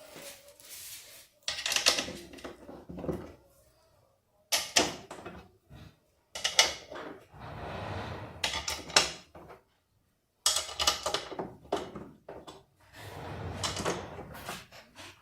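Bursts of rapid metallic clicking and rattling as screws are fitted and run down with an 8 mm wrench, mounting the transmission onto a washing-machine tub.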